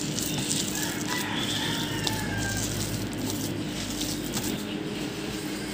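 Hand kneading a soft, moist chana dal and jaggery paste with grated coconut in a plastic bowl: irregular squishing and crackling, over a steady low hum.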